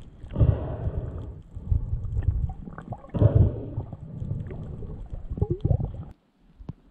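Muffled underwater water noise picked up through a camera's waterproof housing as the diver swims: uneven low surges and gurgling, with a few small clicks. It cuts out about six seconds in.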